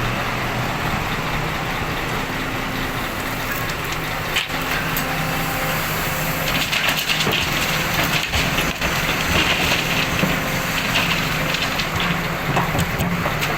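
Diesel engines running steadily while excavated soil and rubble are dumped into a dump truck's bed: a gritty crunching and rattling pour, with a few sharp knocks.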